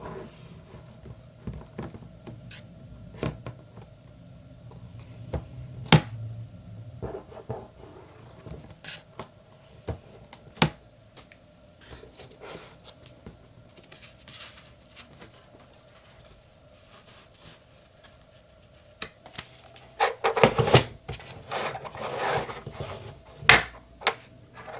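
Crafting handling noises on a desk: scattered sharp clicks and soft taps from a stamp positioning tool and card stock being handled, then a quick cluster of taps and paper rustle near the end as the card and a paintbrush are set down, over a faint steady hum.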